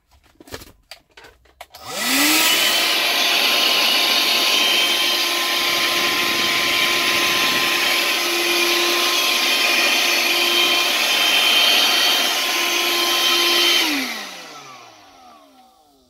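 A cheap 12-volt handheld car vacuum cleaner, its small DC motor and fan running. It starts about two seconds in, rising quickly in pitch to a steady high whine. Near the end it stops and winds down with a falling pitch. A few light clicks come just before it starts.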